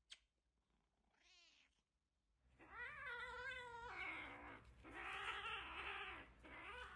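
A kitten crying: a faint short call about a second in, then from about halfway loud, drawn-out, wavering meows that turn rougher and noisier and go on without a break.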